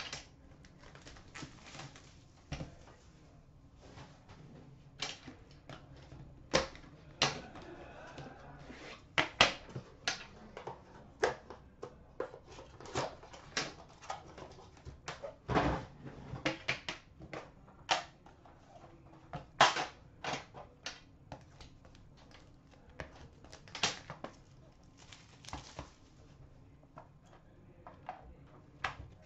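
Hands opening a hockey card box and its metal tin: irregular clicks, taps and scrapes of cardboard and tin being handled. A stretch of rustling comes about 8 seconds in, and a heavier knock about 16 seconds in.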